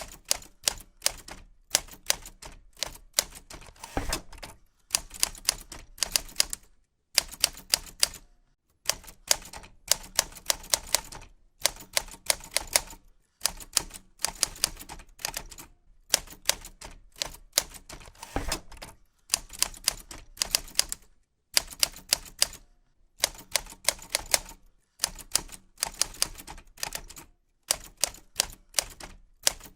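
Typing: quick key clicks in short runs of several strokes, with brief pauses between the runs.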